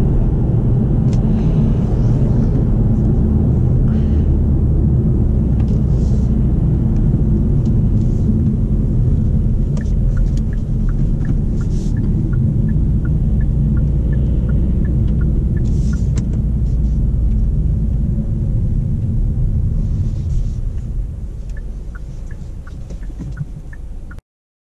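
Cabin sound of a Kia XCeed 1.6 CRDi diesel on the move: a steady low rumble of engine and road. From about ten seconds in, the turn-signal indicator ticks about twice a second. Near the end the rumble gets quieter, then cuts off suddenly.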